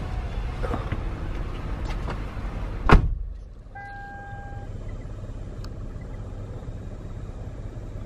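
Outside noise coming in through an open car door, then the Toyota's driver door slams shut about three seconds in, one sharp loud bang. After it the sound turns muffled and quieter, with a short electronic beep just after the slam.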